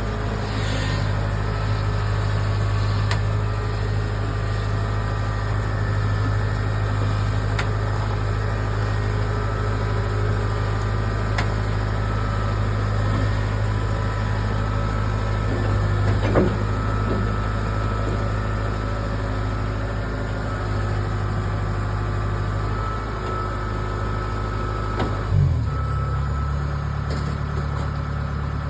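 A vehicle engine running steadily with a low, even hum. Its note changes abruptly about 25 seconds in, with a brief knock around the same moment and another about 16 seconds in.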